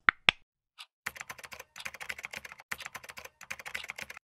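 Laptop keyboard being typed on quickly in a rapid run of key clicks, with two sharper clicks right at the start and two short pauses in the run.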